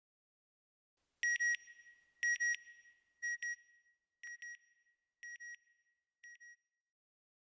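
Electronic double beeps at a high pitch, repeating about once a second, six times, each pair fainter than the last until they fade out.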